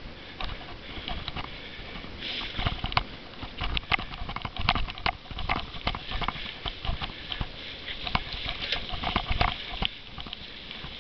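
Cyclo-cross bike rattling over bumpy grass: a rapid, irregular run of clicks and knocks from the frame and chain over a steady rush of tyre and wind noise.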